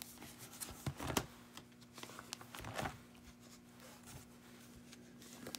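Plastic binder pocket pages of trading cards being turned, rustling and crinkling, with louder rustles about a second in and again near three seconds.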